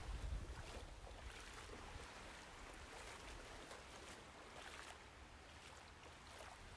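Faint running-water sound effect: a soft, steady wash of water with a few light splashes.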